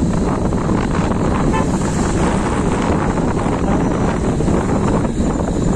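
Steady rush of wind buffeting a phone's microphone on a moving motorcycle, with the motorcycle's engine running underneath.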